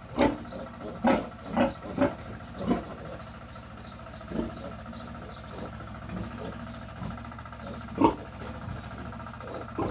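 Two-week-old piglet squealing in short cries while held upside down for castration: a quick run of five squeals in the first three seconds, another about four seconds in, and the loudest about eight seconds in.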